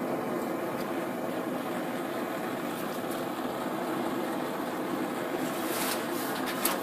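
Homemade forge burner built from 3/4-inch pipe, running with a steady rushing noise. A few light clicks near the end.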